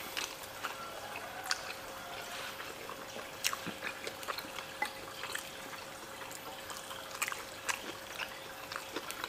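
Close-up eating sounds: wet chewing and lip smacks, with scattered small clicks and taps as food is picked up by hand from plates. A faint steady hum runs underneath.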